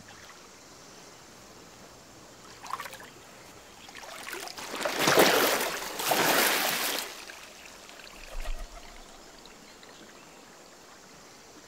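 Water splashing and streaming off a man as he is lifted up out of waist-deep river water after being immersed for baptism. The splash builds about four seconds in and lasts about three seconds.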